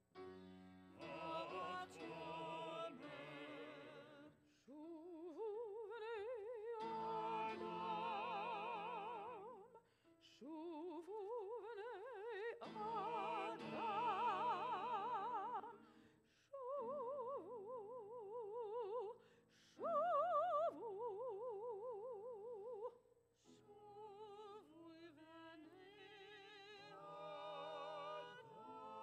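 A woman's solo voice sings a slow cantorial melody in Hebrew, holding long notes with a wide, even vibrato and pausing briefly between phrases. Steady sustained chords from an instrument run beneath the voice.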